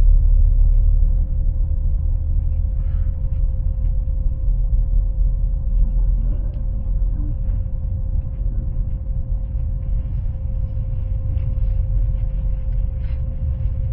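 Airplane engine sound effect: a steady, muffled low rumble with a constant hum held over it.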